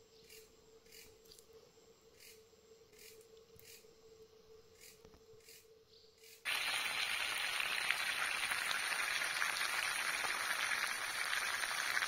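Near silence with faint regular ticking, then, about halfway through, a steady sizzle starts abruptly: fish frying in hot oil.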